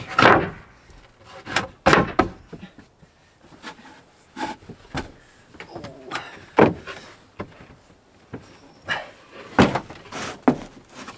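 Wooden table panel and plywood boards knocking and sliding as they are laid flat, with cushions shifted and a person scrambling on the wooden platform: a string of irregular thumps, knocks and scuffs.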